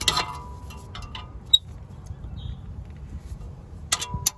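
Small metal hand tools clicking and clinking against metal parts as a small clip is pried loose. There is a sharp click about a second and a half in and a quick run of clicks near the end, each with a brief metallic ring.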